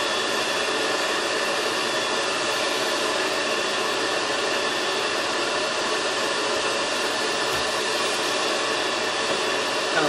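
Atrix Omega HEPA pest vacuum running steadily, drawing air through its crevice tool and hose: an even rush of air with a faint high whine.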